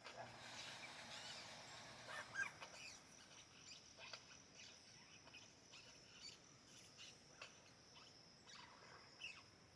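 Faint forest ambience: wild birds chirping now and then, loudest about two and a half seconds in, over a steady high faint whine, with scattered soft clicks.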